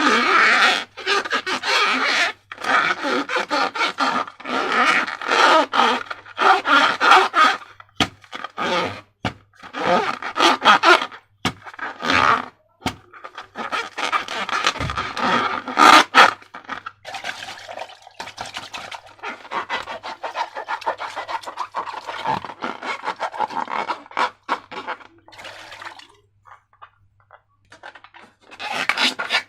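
Slime being worked by hand, with sticky, crackling squishes and scraping in irregular bursts. One sharp snap comes about halfway through, and it goes briefly quiet near the end.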